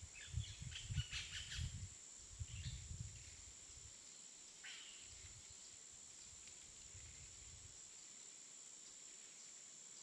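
Woodland ambience: a steady high-pitched insect drone, with a few short bird chirps in the first two seconds and one more about five seconds in. Low rumbling gusts, the loudest sound, come in the first three seconds and then die away.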